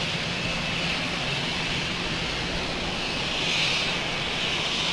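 AMX attack jet's Rolls-Royce Spey turbofan running at taxi power: a steady jet whine and hiss with a low hum under it, swelling slightly a few seconds in.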